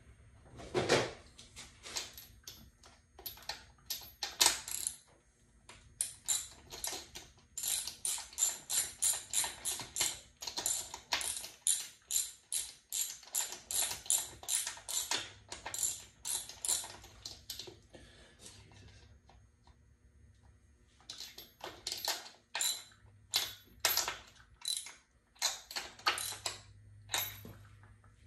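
Hand socket ratchet wrench clicking in quick, regular strokes, about three a second, as fasteners are tightened on an outboard motor. There is a short pause about two-thirds of the way through before the strokes resume.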